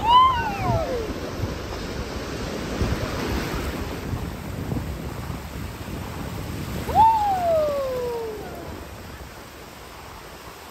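Surf washing on the beach with wind on the microphone, broken twice by a short cry that leaps up and slides down in pitch, once at the start and again about seven seconds in.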